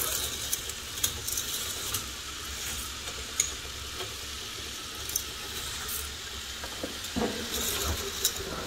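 Motorized K'NEX roller coaster models running: a steady clattering hiss of plastic chain lifts and small motors, with scattered clicks from the cars and track. The sound gets louder about seven seconds in.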